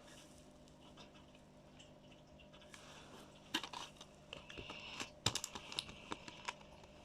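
Small toy pieces and packaging being handled: quiet at first, then a run of light clicks, taps and crinkles starting about halfway through.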